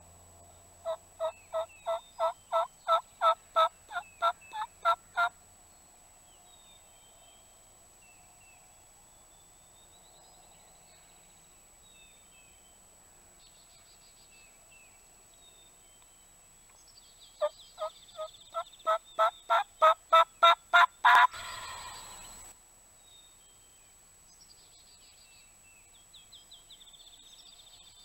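Wild turkey yelps in two runs of about a dozen evenly spaced notes, the second run growing louder and ending in a gobble, with small songbirds chirping faintly in between.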